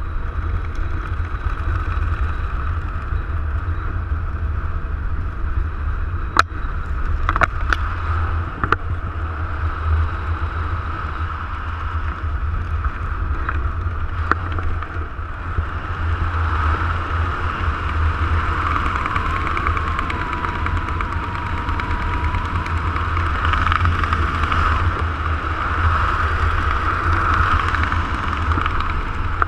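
Steady wind rushing and buffeting against a GoPro's microphone during descent under an open ram-air parachute canopy, with a few sharp clicks about six to nine seconds in and once more around fourteen seconds.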